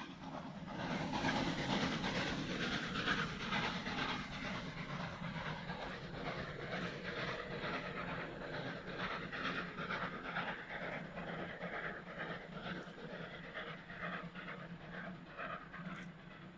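Pt47 2-8-2 steam locomotive working hard up a grade, its exhaust beating in a rapid, even chuff over the low rumble of the train. The sound is loudest about a second in and slowly fades as the train pulls away.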